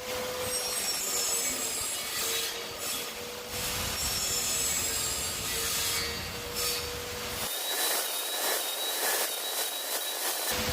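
Power saw cutting 18 mm semi-meranti plywood: a steady motor hum under the rasp of the blade in the wood. About seven and a half seconds in the sound changes abruptly to a thinner, higher cutting noise with a faint high whine, then changes back about ten and a half seconds in.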